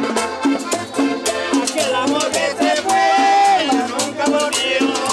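Background Latin music in a salsa style, with shaker percussion keeping a steady beat under a melody; a long held note comes about three seconds in.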